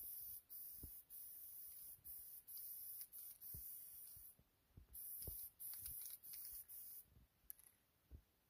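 Aerosol spray paint can hissing faintly in a run of short bursts with brief breaks, pausing about four seconds in, resuming, and stopping about seven seconds in.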